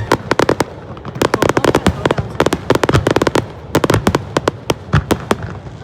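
Aerial fireworks going off: rapid, irregular strings of sharp cracks and pops in dense clusters, like crackling shells bursting one after another.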